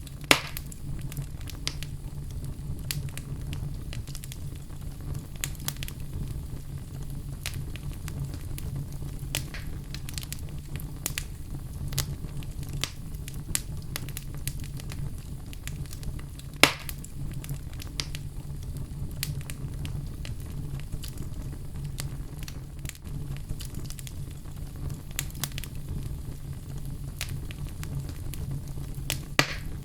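Wood fire crackling in a fireplace: a constant scatter of small crackles over a steady low rumble, with three louder sharp pops, one near the start, one about halfway and one near the end.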